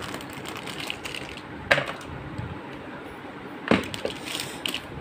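Crinkling and crackling of a metallised anti-static plastic bag being handled, with two louder sharp crackles about two seconds apart.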